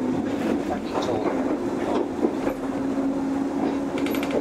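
JR 103 series electric train running, heard from inside the car: a steady hum under the rumble of the wheels, with clicks as they pass over rail joints.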